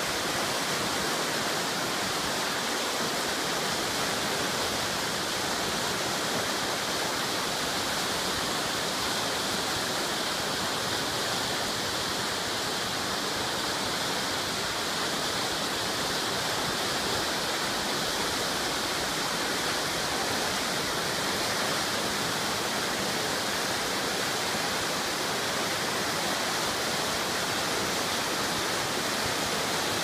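Fast river rushing over whitewater rapids: a steady, even hiss of water that never changes.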